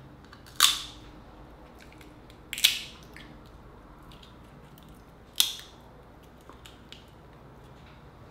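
Cooked Dungeness crab shell being cracked and snapped apart by hand close to the microphone: three loud, sharp cracks a few seconds apart, with small clicks of shell between them.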